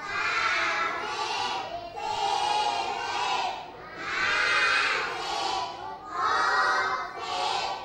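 A class of young children chanting numbers aloud in unison, counting up in tens, in several long, drawn-out calls about two seconds apart.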